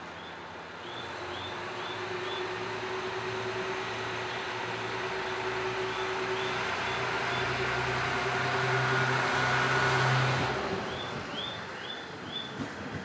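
KiHa 110 series diesel railcar pulling away from a standstill, its diesel engine throttling up and growing louder as the train picks up speed. The engine drops away suddenly about ten and a half seconds in. Groups of short, high chirps repeat through it.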